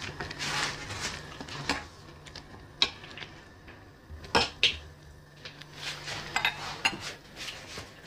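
A metal spoon clinking and scraping against a skillet as it stirs thick buckwheat and meat stew, with a scatter of sharp clinks over a faint steady low hum.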